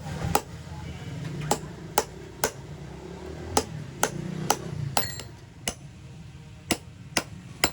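Sharp hammer knocks, about a dozen at uneven intervals, some closely paired, over a low rumble.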